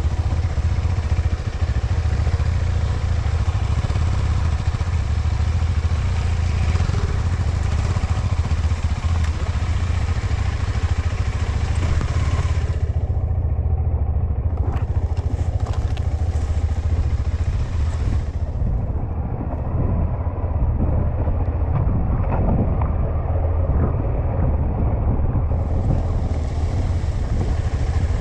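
KTM 390 Adventure's single-cylinder engine running steadily while being ridden over rough ground, with scattered clattering knocks from the bike. The sound turns muffled twice, briefly in the middle and for several seconds later on.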